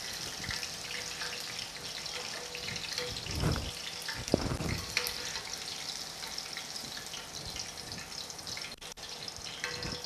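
Green chillies and curry leaves deep-frying in hot oil in a steel pan: a steady sizzle, with a slotted spoon stirring and knocking against the pan a couple of times about three and a half to four and a half seconds in.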